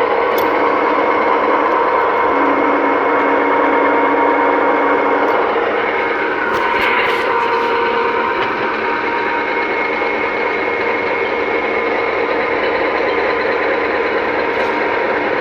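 L5 metal lathe (500 mm swing, 2000 mm bed) running: a steady machine drone with several steady whining tones over it.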